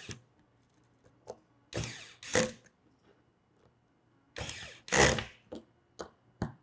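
Corded electric screwdriver driving the ball head's base screws, running in short bursts of under a second each, with quiet gaps of a couple of seconds between them.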